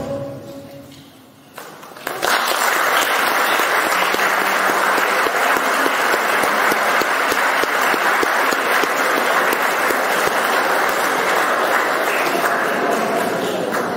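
The last of a piece of music dies away, then about two seconds in an audience breaks into applause that continues steadily, easing slightly near the end.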